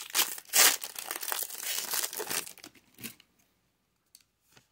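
Foil Pokémon booster pack wrapper being torn open and crinkled, loudest about half a second in and easing off after two and a half seconds, followed by a single click about three seconds in.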